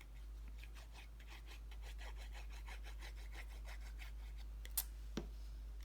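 Cardstock being rubbed and handled: a run of short scratchy rubbing strokes, several a second, then a sharp click near the end.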